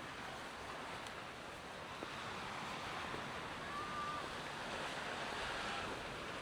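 Sea waves washing onto the shore, a steady rushing noise, with wind buffeting the microphone. Two faint short whistle-like notes sound about four and six seconds in.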